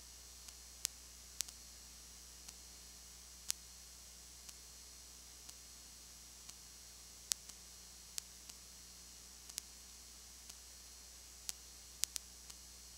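No sound from the game itself, only recording noise: a steady low electrical hum and high hiss, with faint sharp clicks about once a second and a few louder clicks scattered through, two close together near the end.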